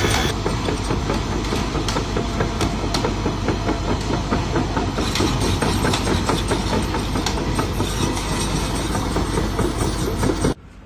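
Excavator's diesel engine running steadily with dense, rapid clattering, stopping abruptly near the end.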